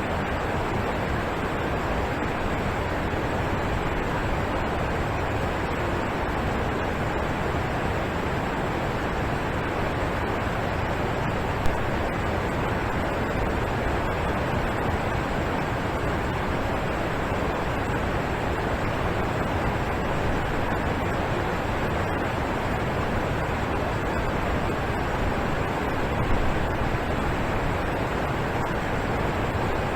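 Waterfall in the Alps rushing, a steady, dense roar of falling water.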